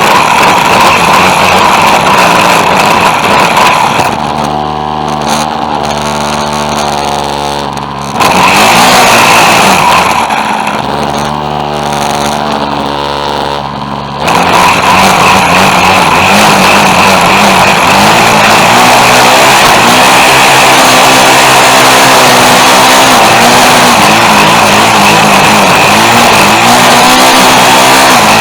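Two-stroke petrol string trimmer (whipper snipper) running at full throttle with a high whine. It drops back to a lower idle twice, at about 4 s and again at about 10 s, each time for roughly four seconds, before revving back up.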